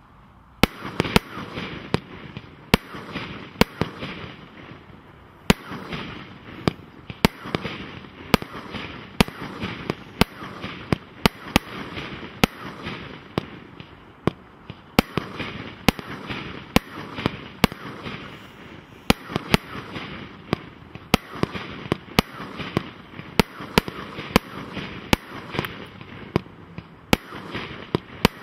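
Celtic Fireworks Quantum Power 36-shot firework cake firing shot after shot, about one loud report a second, with a steady hiss between the reports and two short lulls.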